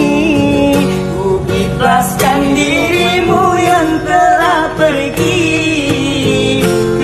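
A song with a voice singing long, wavering notes over instrumental backing.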